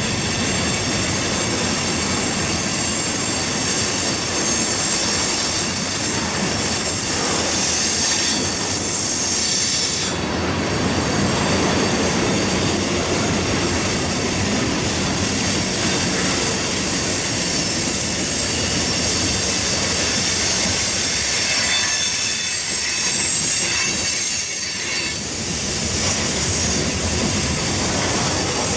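Train's railcars rolling past, their steel wheels squealing against the rails in high, sustained tones. The rolling noise runs on steadily while the squeal tones shift.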